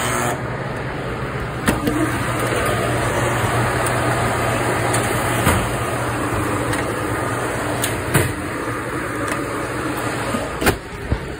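Steady whirring hum of commercial kitchen ventilation, broken by a handful of sharp knocks and clanks.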